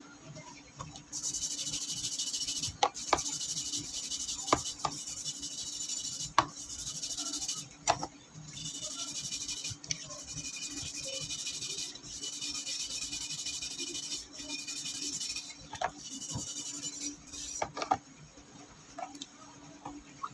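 Wire brush scrubbing a wet, rusty steel cleaver blade: rapid scratchy strokes in runs of one to three seconds, broken by short pauses and a few light knocks. The scrubbing stops a few seconds before the end.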